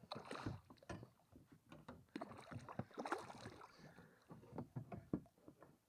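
Water splashing and sloshing as a landing net is worked through the water around a hooked carp, with scattered knocks and clicks of handling at the boat's side. Louder swells of splashing at the start and again about three seconds in.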